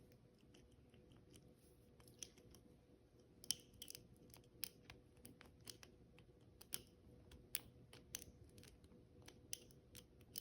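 Faint, irregular metallic clicks and scrapes of a city rake lock pick being worked and rocked inside the small keyway of an old Yale pin-tumbler lock, the pins clicking as they are raked.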